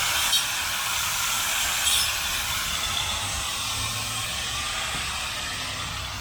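5-inch angle grinder fitted with an alloy cutting wheel ('death wheel') cutting into a small tree, a steady, loud, noisy whine with a couple of brief knocks in the first two seconds.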